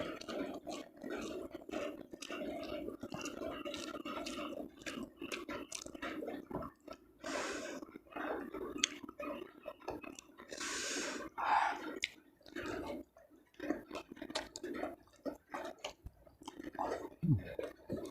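Close-up chewing of food with wet mouth clicks and smacks, and light rain dripping in the background.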